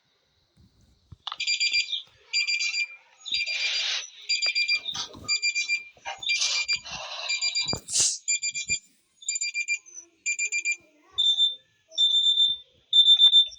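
Electronic alarm beeping in a run of short, shrill, buzzy pulses, about one a second. Near the end the beeps change to a cleaner single-pitch tone.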